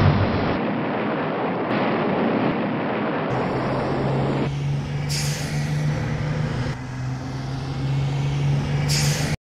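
Vehicle sound effect: a dense, rushing engine-and-traffic noise that changes abruptly several times, with a steady low engine hum coming in about three seconds in. It cuts off suddenly just before the end.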